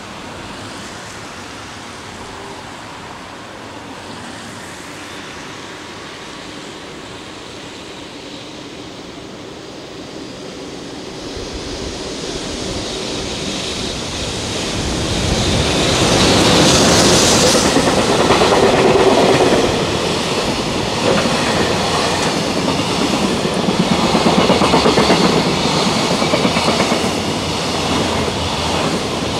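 A JR Freight EH500 electric locomotive comes out of a tunnel and passes, hauling a container freight train. The sound builds from about ten seconds in and is loudest as the locomotive goes by, then becomes a steady rhythmic clatter of wagon wheels on the rails.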